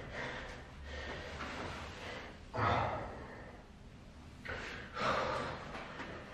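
A man breathing hard and gasping, out of breath from burpees, with heavy breaths about two and a half seconds in and again around five seconds in.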